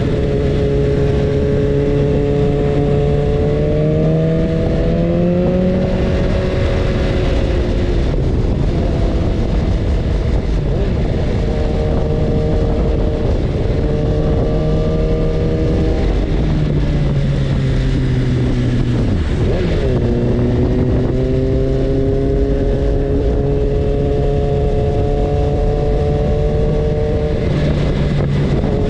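BMW S1000RR's inline-four engine running at steady road revs under heavy wind and road noise. Its pitch rises slightly about five seconds in, drops about sixteen seconds in, dips sharply for a moment near twenty seconds, then holds steady again.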